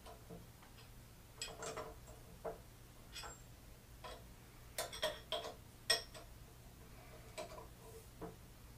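Wrench and steel parts of a K.O. Lee tool and cutter grinder clinking as a nut is tightened: a scatter of light metallic clicks and clinks, the loudest about six seconds in, over a faint steady hum.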